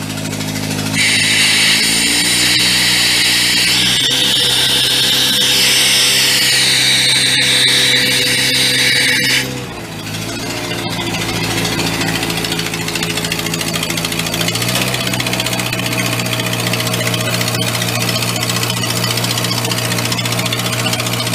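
The engine of a vintage Sullair portable air compressor is running. About a second in, compressed air blows out through the opened tank valve and hose with a loud hiss, and the engine picks up speed in two steps under the load. The hiss cuts off suddenly just before halfway as the valve closes, the engine drops back, then picks up again a few seconds later.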